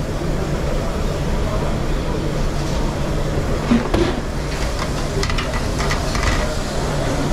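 Busy commercial kitchen: a steady mechanical drone with a low hum, with a few short clinks and knocks of kitchen utensils around the middle.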